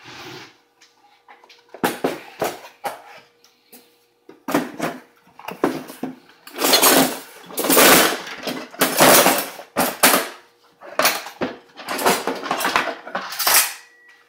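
Kitchen dishes and utensils clattering and rattling as a kitchen cabinet is emptied out: a run of irregular knocks and longer rattles, busiest and loudest in the second half.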